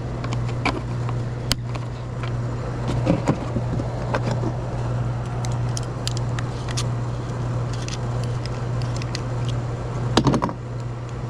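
2008 Carrier heat pump package unit running with a steady low hum, under scattered light clicks and ticks, with a short cluster of louder clicks about ten seconds in.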